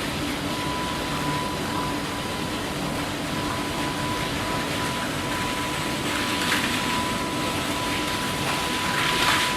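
Automatic car wash machine running: a steady rushing noise with a thin, steady high-pitched whine through it.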